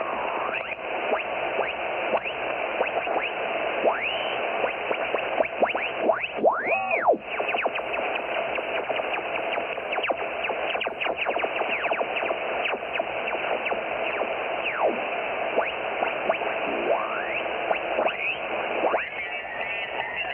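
Amateur radio transceiver's receiver hiss with band noise, cut off above the voice range by the sideband filter, as the tuning dial is turned: carrier whistles slide up and down in pitch as they pass, the loudest dipping and coming back about seven seconds in.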